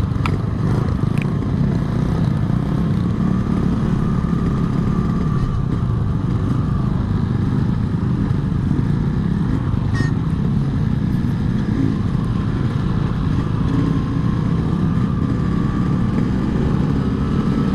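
Yamaha RX-King's single-cylinder two-stroke engine running steadily while riding, with its revs climbing near the end.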